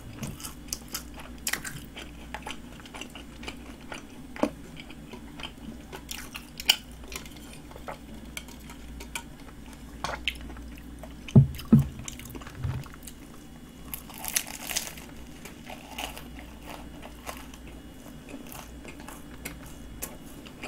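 Close-miked chewing of a flaky cream-filled pastry, with small crisp crunches and crackles. Two low thumps come about halfway through.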